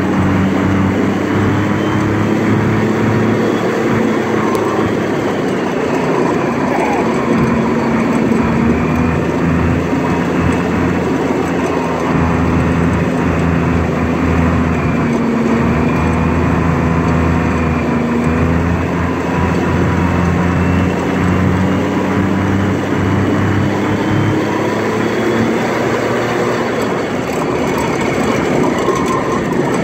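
M106 mortar carrier's engine running under way, heard from the driver's position, its pitch rising and falling gently with the throttle over a steady rumble of the moving tracked vehicle. It runs without faltering, its fuel-system problems fixed.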